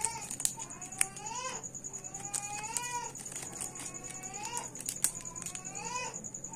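Kitten mewing over and over: about four rising, high-pitched mews, roughly one every second and a half. A few faint clicks of the foil chocolate wrapper being handled.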